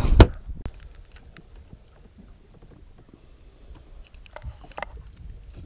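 A hard knock on the aluminium fishing boat's deck hatch just after the start, as the hand works the hatch, followed by quiet with scattered light clicks and taps of handling.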